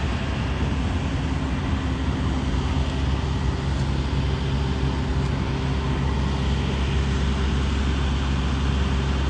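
Steady engine and road hum from a motor vehicle, with a constant low drone.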